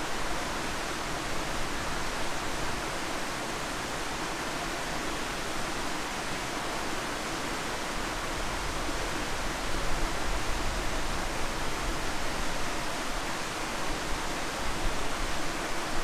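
Steady rush of flowing water from a woodland stream and its falls, an even hiss with no break. It swells with a few low rumbles about ten seconds in and again near the end.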